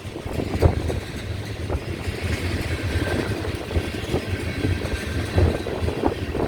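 Union Pacific freight train rolling past, a steady low rumble with irregular knocks from the wheels and cars, with wind buffeting the microphone.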